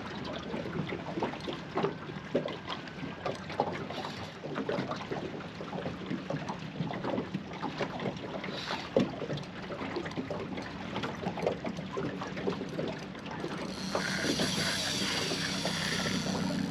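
Water slapping against a small boat's hull, with scattered small clicks and knocks. Near the end a steady mechanical whirring starts and keeps going.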